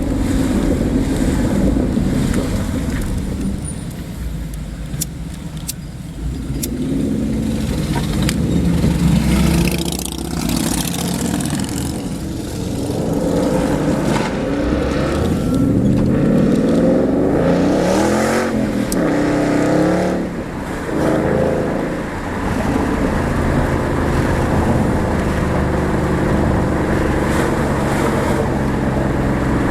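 2009 Ford Shelby Mustang's V8 running and revving on the move, its exhaust note rising and falling in pitch several times, with one clear rev up and back down about two-thirds of the way in.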